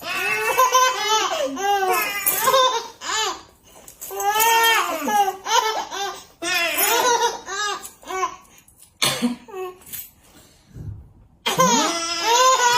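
A baby laughing in several high-pitched bouts with short pauses between them.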